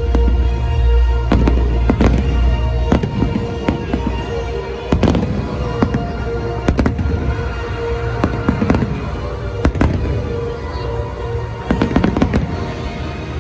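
Fireworks display: aerial shells bursting in a rapid, irregular series of bangs, with music playing underneath.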